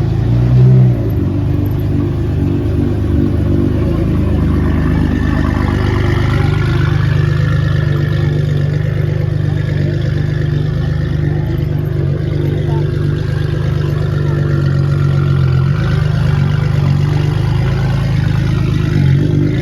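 Highly tuned 1800 bhp Nissan GT-R R35's twin-turbo V6 idling steadily, with a short louder swell just under a second in.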